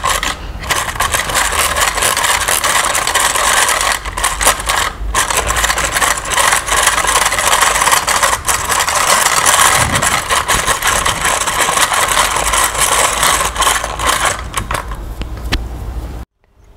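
Hand-cranked rotary egg beater whipping coffee, sugar and hot water into dalgona foam in a steel bowl: a fast continuous rattle and scrape of the metal beaters and gears against the bowl, with a few brief pauses, cutting off suddenly near the end.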